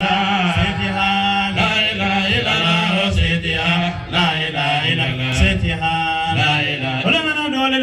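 A man chanting an Islamic prayer in long, drawn-out melodic phrases, holding notes and turning them with slow ornamented slides, without a break.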